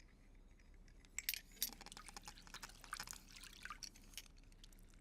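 Liquid splashing and trickling into a frying pan in a quick run of small spurts, starting about a second in and lasting about three seconds.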